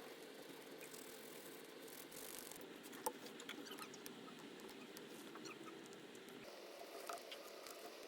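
Faint small clicks and taps of hand tools working on a phone, over a soft steady hum, with a sharper tick about three seconds in and another near seven seconds.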